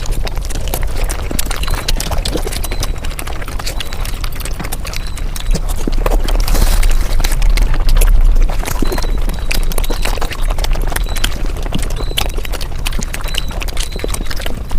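Mukbang eating sounds sped up fivefold: a fast, dense stream of chewing clicks and crunches, with a steady low hum underneath that grows louder about halfway through.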